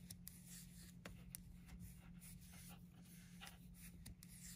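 Faint, irregular ticks and rubbing of metal circular knitting needles and bulky cotton yarn as stitches are knitted, over a steady low hum.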